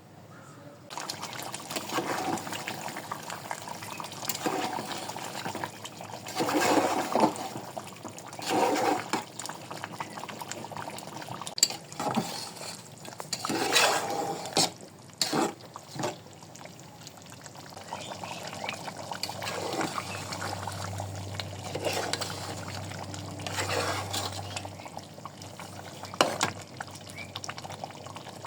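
Liquid pouring and sloshing, with occasional sharp clinks of cookware.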